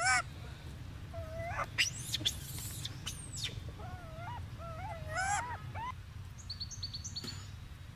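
Baby macaque giving short, squeaky calls that rise and fall in pitch: one at the start, another about a second and a half in, then a string of them from about four to six seconds in. A quick run of higher chirps comes near the end, and a few clicks earlier.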